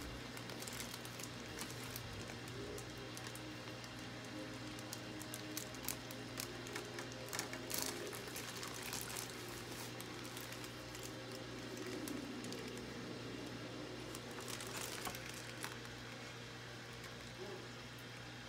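Faint sloshing, dripping and small splashes of aquarium water as a fish net is worked inside a bag and lifted out over a small tank, with a few light clicks, over a steady low hum.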